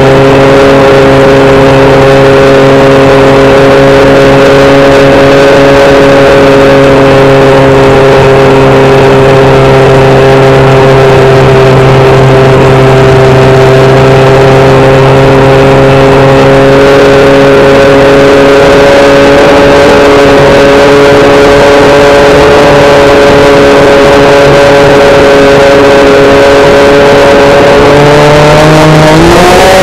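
Electric motor and propeller of an FPV model plane running at steady throttle, a loud droning hum heard from on board. Near the end its pitch jumps up as the throttle is opened.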